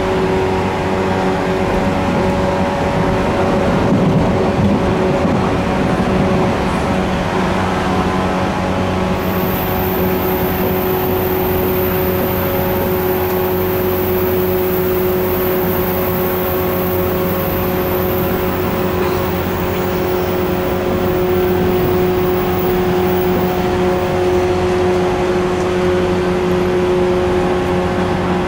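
JR 185 series electric train's MT54 DC traction motors, heard inside the motor car running at speed: a steady growling motor whine of unchanging pitch over wheel-on-rail rumble.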